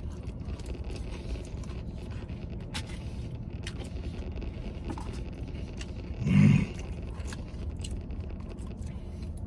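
Eating with a plastic fork from a paper tray: faint clicks and scrapes, and chewing, over a steady low hum in a truck cab. About six seconds in comes a short hummed "mmm".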